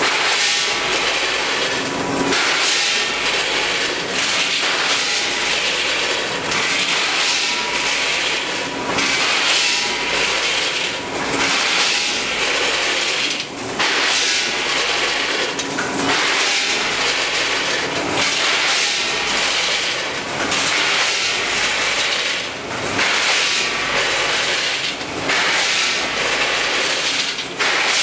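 Multihead combination weigher running: a continuous clatter of hard pasta pieces rattling along the vibrating feeder pans and dropping through the hoppers, mixed with mechanical clacking from the machine.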